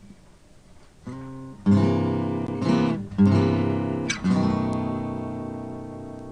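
Acoustic guitar starting a song: after a brief hush, a few strummed chords, the last one left to ring and slowly fade.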